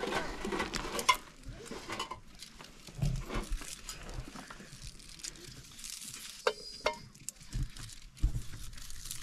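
Onions being peeled by hand with small knives: scattered soft clicks of blades and rustling of dry onion skins. A voice is heard briefly near the start, and a short pitched call comes about two-thirds through.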